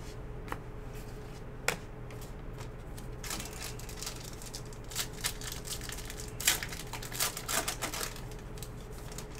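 Trading cards being thumbed through by hand: a couple of sharp clicks, then a cluster of card-stock rustles and snaps in the middle stretch, over a faint steady hum.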